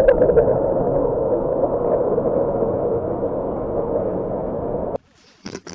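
A long, drawn-out fart sound effect that stays steady for about five seconds and cuts off abruptly. Near the end comes a brief, hissier burst.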